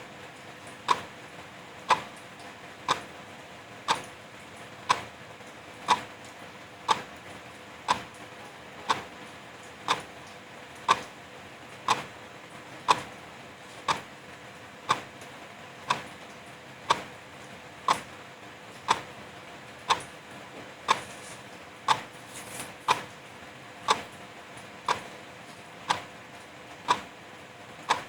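Wall clock ticking steadily, about one tick a second, over the steady hiss of a light drizzle.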